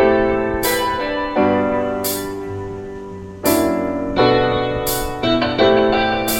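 Piano music with slow sustained chords; a bright percussive accent marks each beat, about every second and a half.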